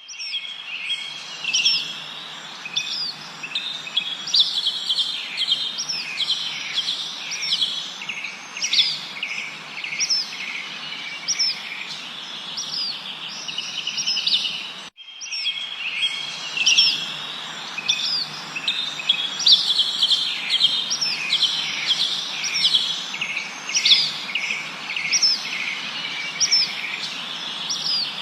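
Several songbirds chirping and trilling in quick, overlapping calls over a steady background hiss. About halfway through, the sound cuts out for a moment and the same stretch of birdsong starts over, as a recording loop repeats.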